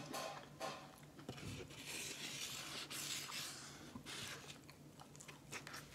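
Close-miked chewing of a soft eel sushi roll: quiet wet mouth sounds with faint clicks, and a soft rasping stretch between about two and three and a half seconds in.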